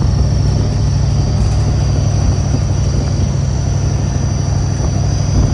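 Steady low rumble of a running vehicle, with a faint steady high-pitched whine over it.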